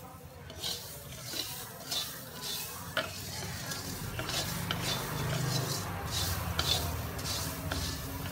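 Wooden spatula stirring and scraping moist fennel seeds around a hot iron kadhai as they dry-roast, with a light sizzle under repeated short scrapes. A sharper click of the spatula on the pan about three seconds in.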